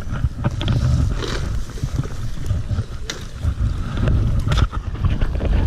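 Wind buffeting the microphone, an uneven low rumble, with a few sharp clicks or knocks.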